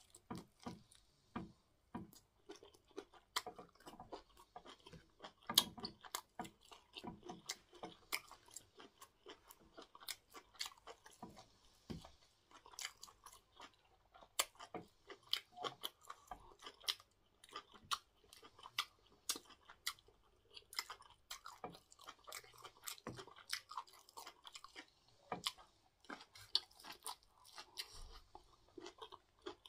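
A person chewing and eating cocoyam fufu with bitter leaf soup by hand: a steady run of small, irregular mouth clicks.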